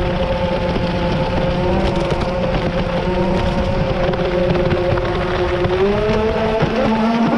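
RC boat's motor running at speed, with water rushing and splashing against the hull. The motor's pitch stays mostly level, then rises about six seconds in.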